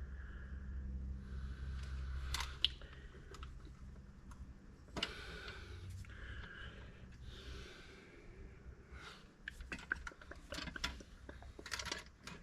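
Scattered light clicks and clinks of hand tools and metal parts being handled during tractor repair, coming thicker near the end, over a low steady hum that fades after the first few seconds.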